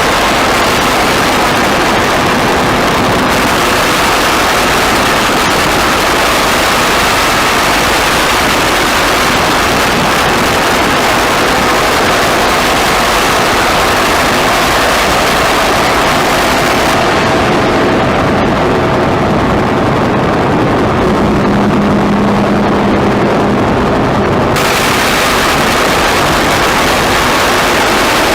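Noise music: a loud, dense, unbroken wall of electronic noise with faint steady tones inside it. About 17 s in the high end fades away, leaving a darker rumble with a brief low hum, then the full hiss cuts back in suddenly about 24 s in.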